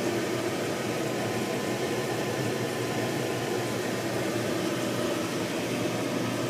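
Steady hiss and hum of a yacht's air-conditioning system running, with faint steady tones under the noise.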